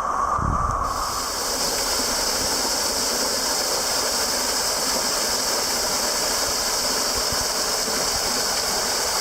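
Rain-swollen waterfall pouring, a steady rush of falling water. The sound shifts abruptly about a second in, becoming brighter and hissier.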